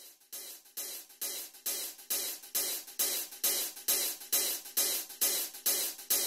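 Music intro: a cymbal struck alone, steadily about twice a second, growing louder.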